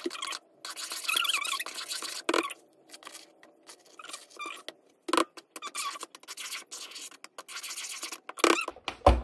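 Metal spoon scraping and stirring dry cake mix into wet batter in a plastic mixing bowl, in irregular scratchy strokes.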